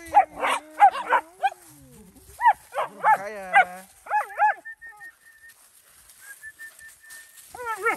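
Puppy yipping and barking in play: bursts of short, high yips over the first four seconds or so, then it goes quieter.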